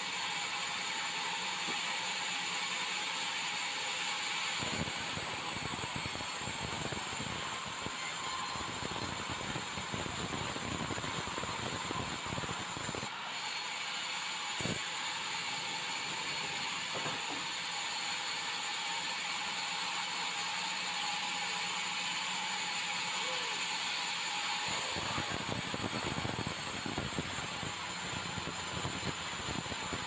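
Stationary sawmill saw running and cutting bengkirai hardwood timber into beams, a steady hissing machine noise. A deeper rumble joins about five seconds in, drops out around thirteen seconds, and comes back near the end.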